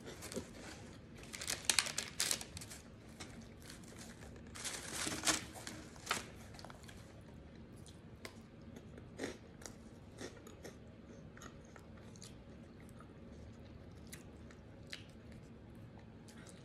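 Crunchy snack food, Tom's Hot Fries, being bitten and chewed, in two runs of loud crunches in the first six seconds. Fainter chewing and scattered small clicks follow.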